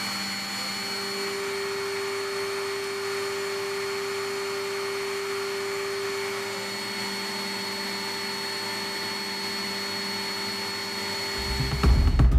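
Steady whir of aircraft machinery with a few constant high whining tones, heard inside an MV-22 Osprey's cabin. Music with a heavy low beat comes in near the end.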